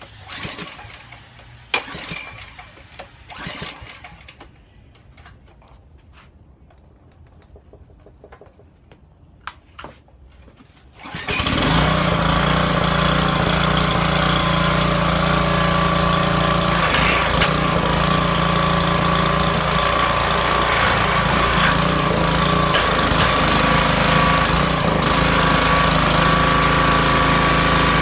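A few light clicks and handling noises, then about a third of the way in a gas pressure washer's small engine starts abruptly and runs steadily and loudly, its pump drawing water from a 5-gallon bucket.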